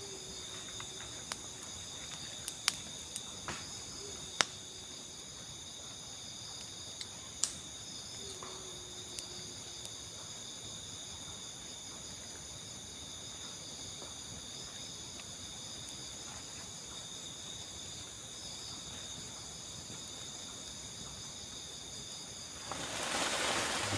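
A steady night chorus of crickets trilling, high-pitched and unbroken, with a few sharp clicks in the first ten seconds and a short burst of rustling noise near the end.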